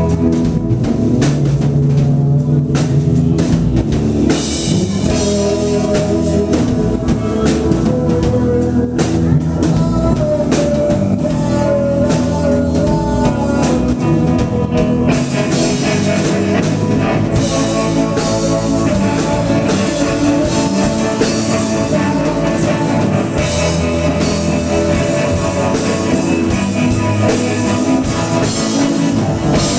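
Live rock band playing a song: electric guitar, bass guitar, drum kit and keyboards, with the lead vocals barely heard under the instruments.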